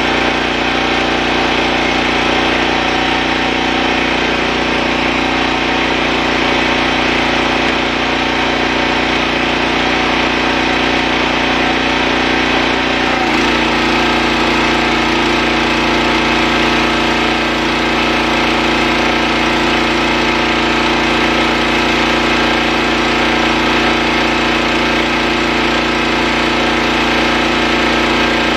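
Gas-engine pressure washer running steadily, with its tone changing abruptly about halfway through.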